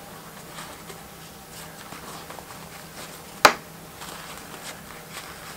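Quiet handling of a glued arrow shaft and a paper towel, with light rustles and small ticks and one sharp click about three and a half seconds in.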